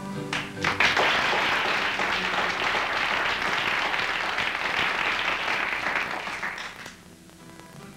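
Audience applauding, breaking in about a second in and dying away near the end. Guitar music cuts out at the start and comes back as the clapping fades.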